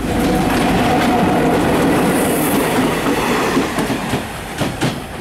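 WDM3D diesel-electric locomotive running light past at close range, its engine running and wheels clattering over the rail joints. The sound is loudest as it passes, then drops away, with a few sharp wheel clacks near the end.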